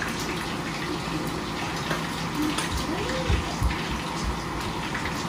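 Crappie deep-frying in hot oil in a pan, a steady sizzle with scattered small crackles over a low steady hum.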